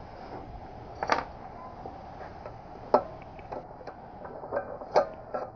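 Pliers and small metal parts clicking and clinking inside the open crankcase of a Predator 212 engine as an internal arm is worked loose. A handful of sharp metallic ticks come at irregular intervals, the loudest about one, three and five seconds in.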